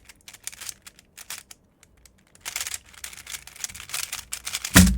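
A springless MoYu RS3M 2020 speed cube being turned fast: quick runs of plastic clicking and clacking as its loose layers turn, with a short pause about two seconds in and a loud thump near the end.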